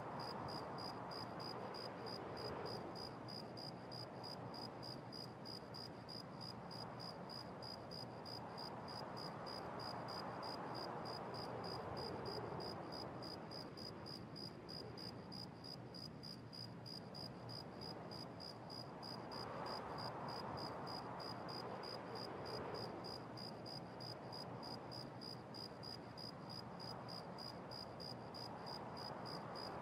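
Quiet bedroom room tone through a security camera's microphone: a faint steady hiss with a rapid high-pitched pulsing, a few pulses a second, and a soft noise that swells and fades every ten seconds or so.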